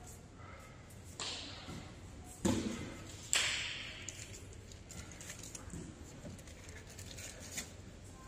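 Thuds and slaps of grapplers' bodies and feet on gym mats during standing takedown sparring: three sharp hits in the first three and a half seconds, then only light scuffing and ticks.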